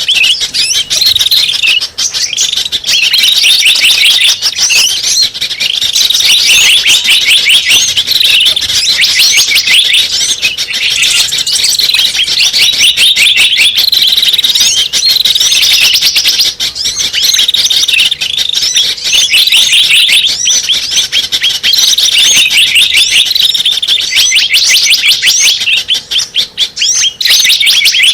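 Bird-lure (pikat) recording of small songbirds: a dense, loud run of rapid chirps and trills in phrases that repeat every few seconds.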